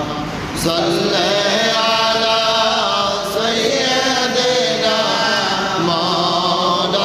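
A man chanting an Islamic supplication in long, drawn-out melodic phrases into a microphone, with short breaks between phrases.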